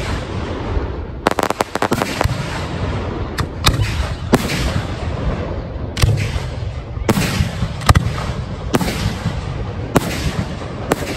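Fireworks display: aerial shells launching and bursting, a string of sharp bangs, some in quick rapid-fire clusters, over a continuous low rumble.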